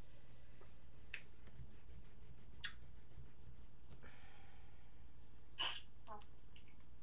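Cardstock strips and a small cardboard frame being handled and pressed into place: a few sharp paper clicks, the loudest about two and a half seconds in, with a short rustle a little after four seconds and another click near the end, over a low steady hum.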